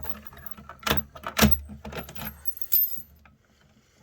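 A bunch of keys jangling, with several sharp metallic clicks and knocks over the first three seconds. A low hum cuts off about three seconds in.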